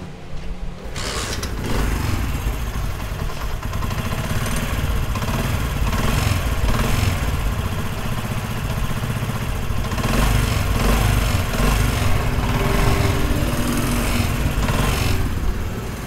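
Small air-cooled single-cylinder motorcycle engine running steadily, heard close up at the cylinder. It runs smoothly now that the loose nut behind its knocking noise has been retightened.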